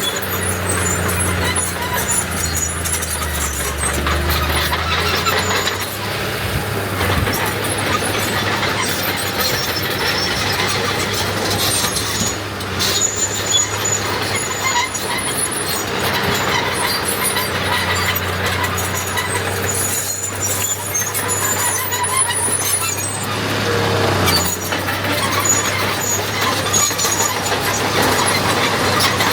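Diesel earthmoving machinery running steadily, with short high-pitched metallic squeals coming and going over the engine.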